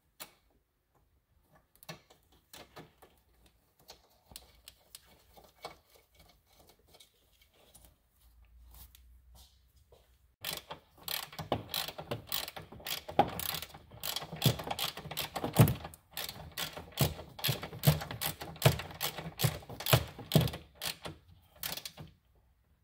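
Hand ratchet wrench clicking as it runs down the bolt on a car's battery ground strap: a few scattered clicks and taps at first, then fast, steady ratcheting from about ten seconds in until near the end.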